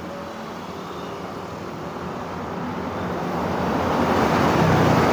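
A road vehicle approaching, its engine and tyre noise growing steadily louder.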